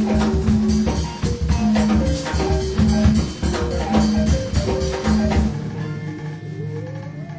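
Band music with a drum kit and a repeating bass pattern. The drums and bass stop about five and a half seconds in, leaving a softer held sound with a gliding pitch near the end.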